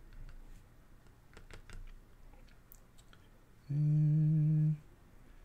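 A man hums one steady low note for about a second, late in the stretch. Before it come only faint light taps and scratches of a pen working on paper.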